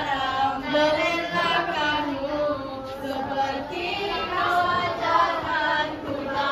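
A song with a singing voice over music.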